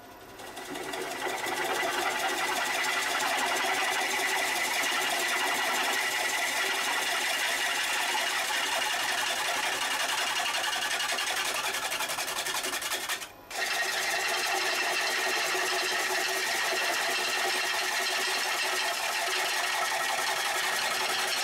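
Bowl gouge making a shear pull cut on a winged kiln-dried pine blank spinning on a lathe: a steady, rapid, even chatter, since the gouge cuts air for much of each turn. It builds up over the first second or two and breaks off briefly about 13 seconds in.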